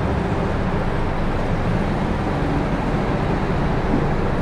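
Several rental go-kart engines idling and running together, a steady engine din.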